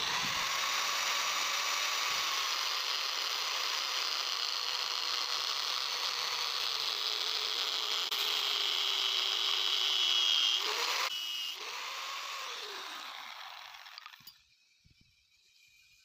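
An electric power tool running steadily at high speed, its pitch dipping briefly under load twice near the end before it winds down and stops.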